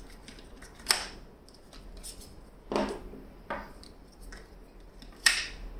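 Magnetic adapter of an iCafilas travel espresso maker being pulled off and snapped back onto the body: three sharp plastic clicks with light handling rattles between them.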